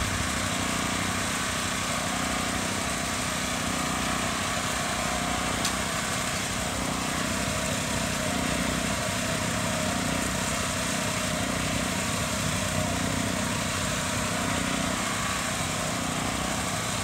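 Small gasoline engine of a handheld power screed running steadily at a constant speed.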